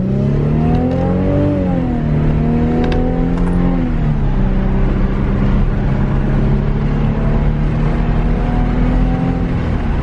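Mercedes-Benz C300 V6 with its mufflers removed, heard from inside the cabin, accelerating. Its note rises, drops twice as the transmission shifts up, then holds steady at cruise. It runs smoothly, with no misfire, on new spark plugs.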